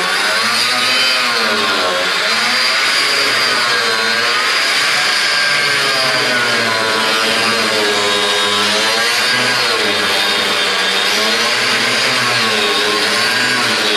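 Power cutting tool running continuously as it cuts through car-body sheet metal, its pitch dipping and rising again and again as the load on the cut changes.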